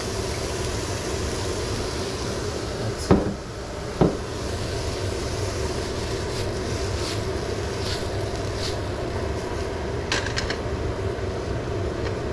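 A steady low rumbling hum, with two sharp knocks about three and four seconds in and a few light clicks near the end.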